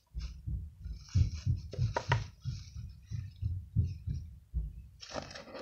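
A runny lotion-and-salt slime mixture being stirred in a small cup: soft low knocks about three times a second, with wet scraping over some strokes.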